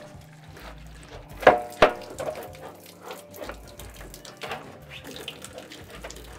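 Groundwater running and splashing into the pipe through a leaking joint, with two sharp knocks about a second and a half in and a few softer clicks later.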